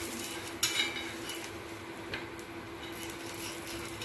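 Steel spatula scraping and clicking against a dosa tawa as it is worked under a dosa to loosen it: a few short scrapes, the sharpest about half a second in, over a steady low hum.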